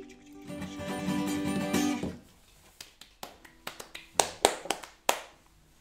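Acoustic guitar strumming the last chords of a song, which stop about two seconds in. Then a few seconds of scattered hand claps, loudest near the end.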